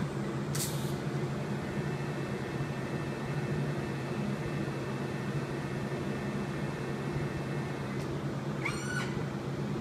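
Electric arc welding on steel: the steady hiss of the welding arc over a low electrical hum, with a click about eight seconds in and a short squeak near the end.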